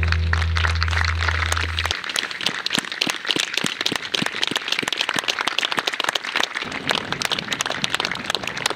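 Many hands clapping steadily in a pre-match minute's applause. A low music note underneath cuts off about two seconds in.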